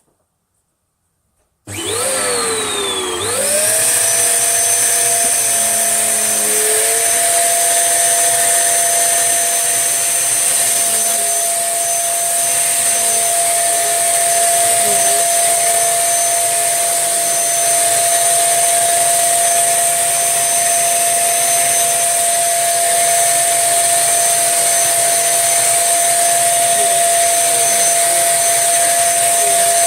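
Tesco own-brand 1800-watt bagless upright vacuum cleaner switched on about two seconds in. Its motor whine sweeps and settles within a couple of seconds, then it runs steadily with a constant high whine.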